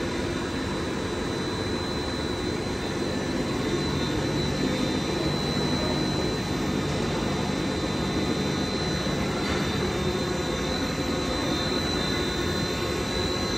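Jensen industrial roll ironer running: a steady whir from its drive motors, belt drive and exhaust fan, with a steady high whine over it.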